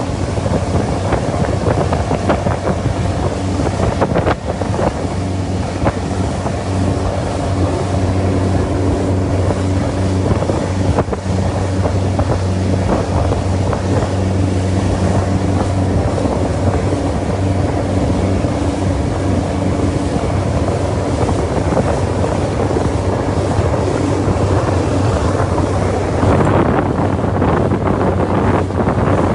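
Boat engine running with a steady low drone, with wind rushing and buffeting across the microphone.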